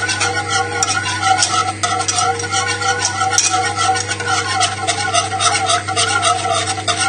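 Wire whisk beating cubed butter into a reduced red wine sauce in a saucepan, a continuous scratchy swishing of quick strokes against the pan: the butter being emulsified to make the sauce glossy. A steady low hum runs underneath.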